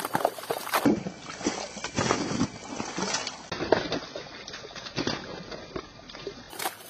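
Hand hoe chopping into wet mud and flinging it aside: repeated wet strikes with sloshing and splashing of muddy water.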